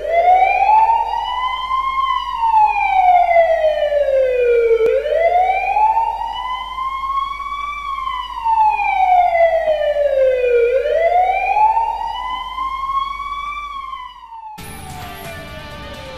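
Fire engine siren wailing: three slow cycles, each climbing in pitch over about two seconds and then sliding down over about three. About fourteen and a half seconds in it gives way to a news broadcast's music opener.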